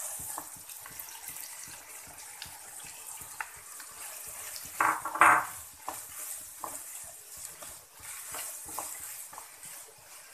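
Chopped onions sizzling in hot oil in a kadhai, freshly added and stirred with a spatula that scrapes and ticks against the pan. Two louder strokes of the spatula come about halfway through.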